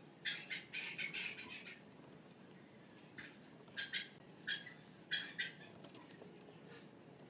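Ballpoint pen scratching marks onto a wooden board: faint clusters of short, scratchy strokes, a longer run near the start and several brief ones later.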